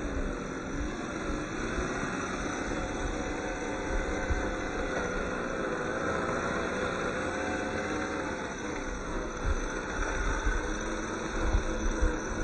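Electric motor and gear drive of a radio-controlled rock crawler whining, the pitch wavering up and down, with a few low thumps near the end.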